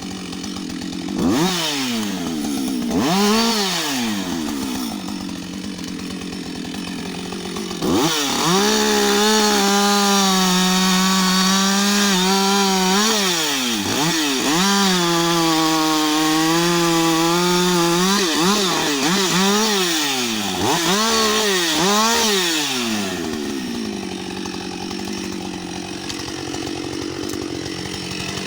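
Husqvarna 560 XP two-stroke chainsaw: quick throttle blips and idling, then two long stretches held at full revs, as when the chain is cutting through wood, followed by more blips and idle.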